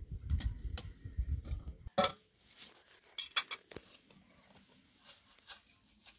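A low rumble that cuts off abruptly about two seconds in, followed by scattered light clinks and taps of tea things being handled: glasses, a metal tray and kettles.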